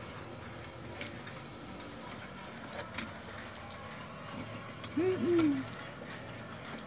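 Steady high chirring of crickets, with faint clicks and, about five seconds in, a short low two-part hoot-like call.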